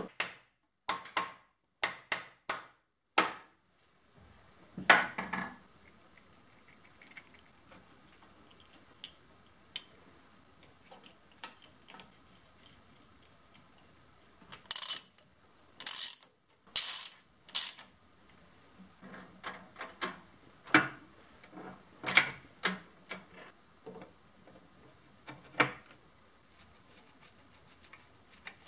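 Steel hand tools and loose parts clinking and knocking on the metal housing of a milling machine as it is taken apart with a socket wrench and screwdriver: scattered separate clicks and clanks, with a run of four louder ones about fifteen to eighteen seconds in.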